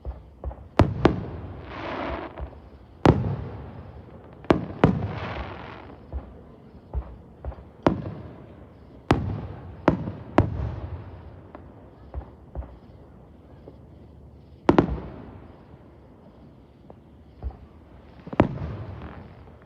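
Fireworks going off: about a dozen sharp bangs at uneven intervals, several of them trailed by about a second of hiss.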